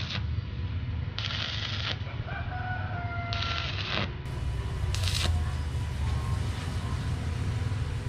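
Stick welding on square hollow steel tube with a small inverter welder: four short bursts of arc crackle and hiss as joints are tacked. A rooster crows once between the second and third bursts.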